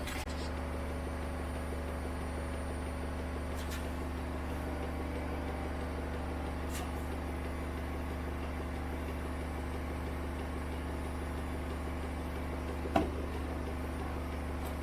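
Zanussi IZ 16 S washing machine running with a steady, even hum, with a few short clicks, the loudest near the end.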